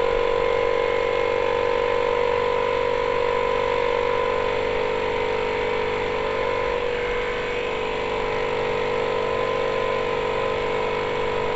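Air compressor running loudly and steadily, refilling its tank: a constant motor hum with a steady pitched whine over it.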